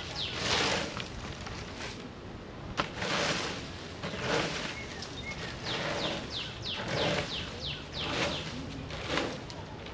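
Plastic leaf rake scraping through sticks, leaves and dirt in strokes about once a second. A bird calls with short falling chirps, a quick run of them about six seconds in.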